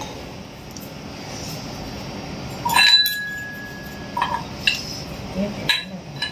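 Stainless steel kitchen vessels clinking. One loud ringing clink about three seconds in, then a few lighter clinks.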